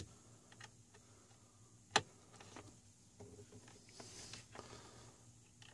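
Faint handling noises of small parts, with one sharp click about two seconds in.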